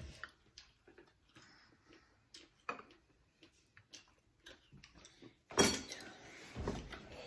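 Table eating sounds: scattered small clicks and taps of chopsticks on bowls and dishes with quiet chewing, and a louder sudden noisy burst about five and a half seconds in.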